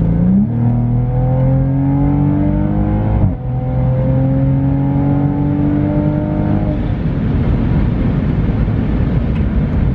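Toyota A90 Supra's turbocharged engine and aftermarket stainless catback exhaust, heard from inside the cabin with the factory speaker sound switched off, accelerating hard. The engine note climbs for about three seconds, drops briefly at an upshift, then climbs again for another three seconds before settling into a steady cruise with road noise.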